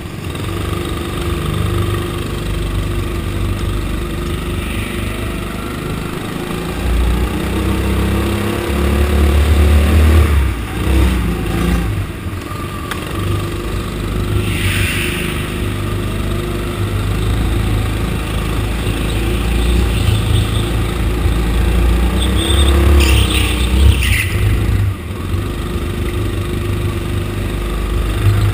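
Go-kart engine running close to the microphone, its revs rising and falling as the kart laps the track. Two short high squeals cut in, about halfway through and again near the end.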